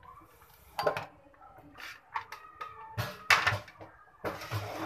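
Steel ladle stirring ice cubes in plum sharbat in a plastic bowl, with scattered clinks and knocks of ice and ladle against the bowl and a louder rattle about three seconds in.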